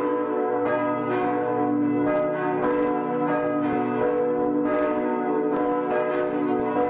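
Church bells pealing, strokes coming in quick succession with their tones ringing on and overlapping.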